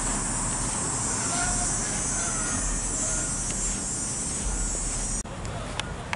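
Road traffic noise: a steady rushing hum with a high hiss. It cuts off abruptly about five seconds in, leaving quieter outdoor sound with a couple of sharp clicks.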